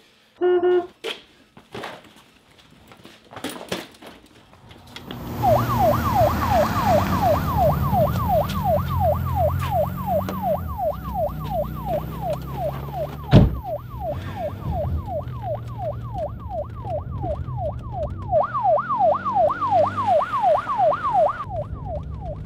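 Police siren on a fast yelp, rising and falling about three times a second, starting about five seconds in over a low rumble. A single sharp bang about halfway through is the loudest sound.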